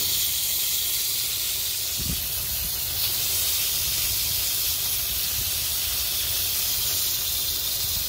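Water spraying steadily from a garden hose spray nozzle onto a freshly dug clump of ginger roots, washing the soil off them: an even, unbroken hiss.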